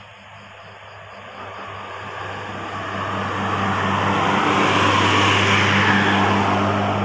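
A bus driving past: a steady low engine hum with road and engine noise swelling as it approaches, loudest about five seconds in.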